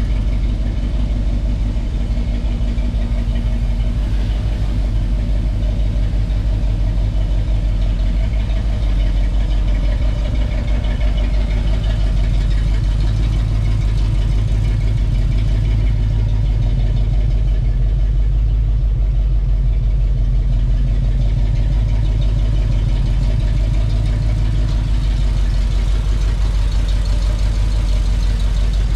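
1939 Dodge tow truck's swapped-in Cadillac V8 engine idling steadily, its even firing pulses running on without a change in speed.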